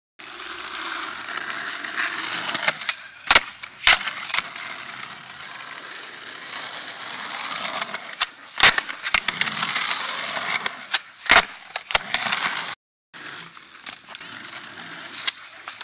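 Skateboard wheels rolling on concrete with a steady gritty hiss, broken by several sharp clacks of the board hitting and landing on the concrete, the loudest a few seconds in and past the middle. The sound drops out completely for a moment about two-thirds through.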